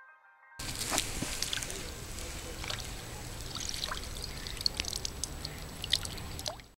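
Pond water splashing and dripping, with scattered small splashes and ticks, as a carp is let go from a landing net and swims away. It starts suddenly about half a second in and cuts off at the end.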